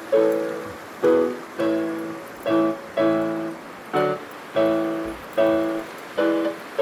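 Piano music: chords struck in a steady rhythm, about one every 0.7 seconds, each fading before the next.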